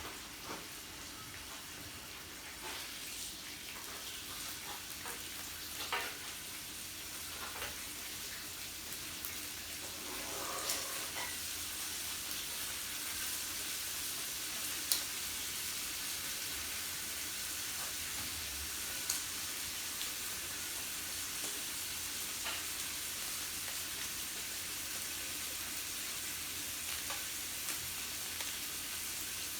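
Meat sizzling on a yakiniku grill: a steady frying hiss that grows a little louder about a third of the way in, with a few sharp clicks here and there.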